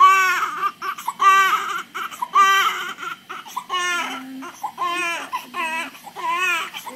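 Newborn baby crying in short, repeated wails, roughly one a second, each a high cry that rises and falls, with brief breaths between.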